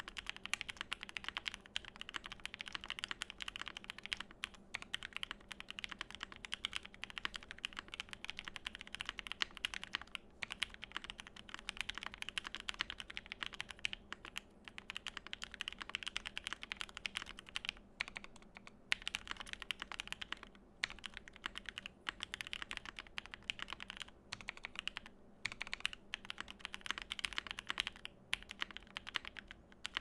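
Fast, continuous typing on a custom gasket-mounted E8.5 mechanical keyboard with lubed Op Black switches, a foamed polycarbonate plate, tape mod and GMK Ursa keycaps: a dense stream of keystroke clacks, broken by a few brief pauses.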